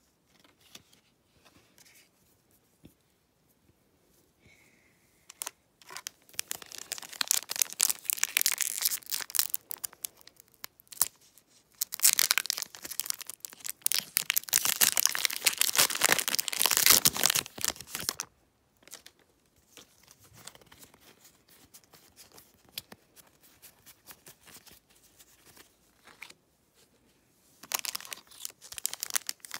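Foil booster pack wrapper of Pokémon trading cards crinkling and being torn open by hand. It comes in two long loud spells of crackling and tearing a few seconds in and around the middle, and again near the end, with quiet pauses between.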